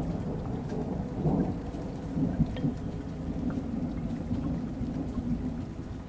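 Steady rain with a low rumble of thunder, swelling about a second in and again about two seconds in.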